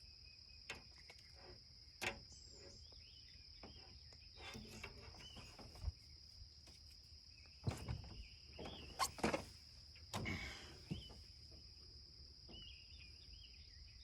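Steady, faint high-pitched chirring of insects, with a few sharp clicks and a cluster of light knocks about two-thirds of the way through.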